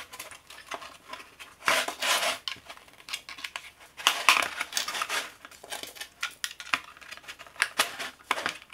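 Plastic pry tool worked into the seam of a portable power bank's plastic case, prying it open: scratchy scraping in three bursts, with scattered plastic clicks between them.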